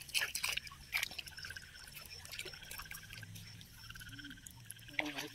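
Frogs calling in a pulsing chorus over a steady chirring of night insects around shallow water, with a few sharp water splashes in the first second.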